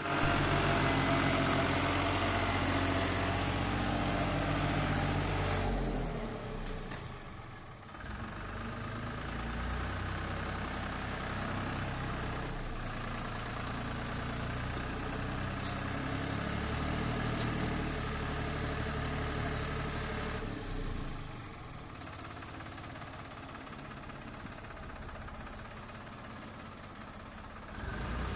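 Engine of a machine loading animal manure, running throughout: under higher revs for about the first six seconds, then dropping and shifting in pitch as it works.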